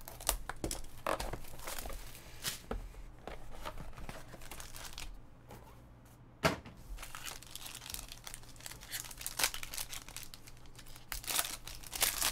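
Foil trading-card pack crinkling and being torn open by hand, with repeated crackling of the foil wrapper. There is a single sharp tap about halfway through.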